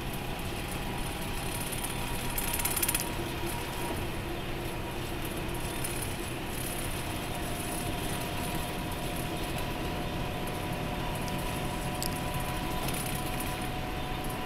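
Cabin noise inside an express coach at highway speed: a steady drone of engine and tyres on the road, with a faint steady whine. A brief louder rush comes about two and a half seconds in.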